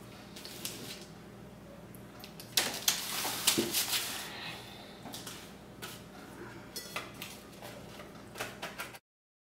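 Hard clicks and clinks of objects handled on a tabletop beside a glass terrarium container, loudest in a quick cluster about three seconds in, then fewer scattered clicks. The sound cuts off abruptly near the end.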